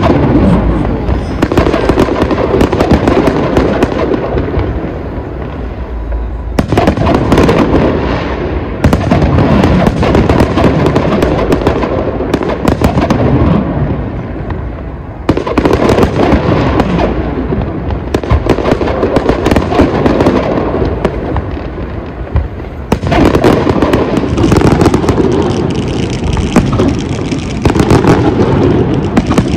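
Fireworks display: a dense, continuous barrage of aerial shells bursting, with booms and crackling.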